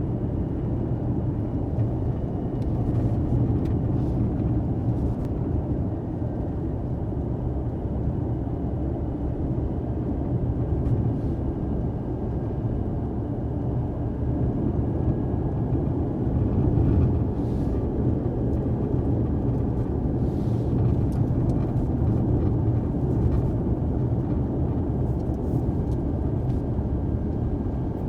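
Steady low rumble of a car driving, heard from inside the cabin, with a few faint light ticks here and there.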